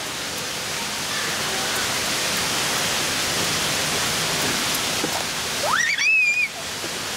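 Steady rushing background noise throughout. About six seconds in, a young child gives one brief squeal that rises steeply and holds high.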